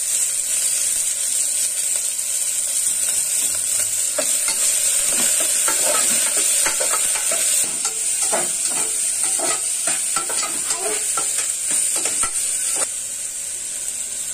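Sliced onion frying in hot oil with whole spices in an aluminium pressure cooker: a steady high sizzle, with irregular clicks and scrapes from about four seconds in that stop near the end.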